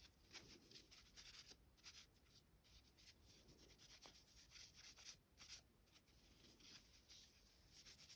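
Faint, irregular rubbing and wiping strokes: cleaning cloth or patch scrubbing pistol parts during gun cleaning.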